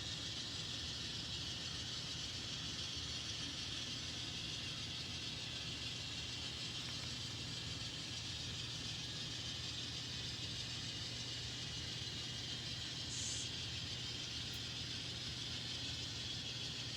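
N scale model locomotive running on the layout with its decoder sound muted: a steady low hum and whir of the motor and wheels on the track, with one brief faint tick about 13 seconds in.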